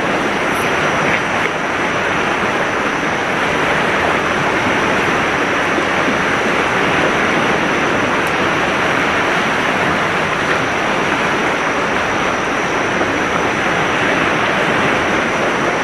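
Steady rushing of a swollen, fast-flowing river in flood, with a thin steady high tone above it.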